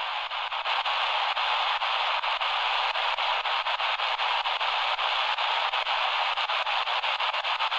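XHDATA D-328 portable radio hissing with shortwave static through its speaker while being tuned across the 11.45 to 12.25 MHz band, with no station coming in. Frequent quick crackles run through the hiss.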